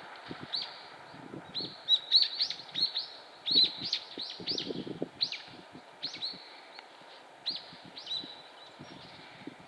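Oriental greenfinches calling: a flurry of short, high chirps, thickest in the first half and thinning out towards the end, with soft low taps underneath.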